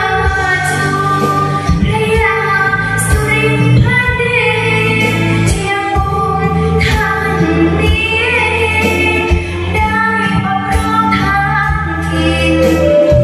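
A girl singing a Thai song into a microphone over accompanying music with a steady bass line, amplified through a PA system.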